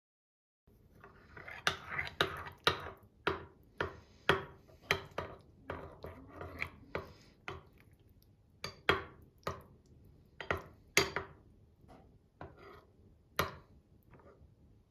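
Kitchen food preparation: a utensil knocking sharply and unevenly against a board or bowl, roughly twice a second, with softer scraping and rustling between the knocks. The knocks thin out over the last few seconds.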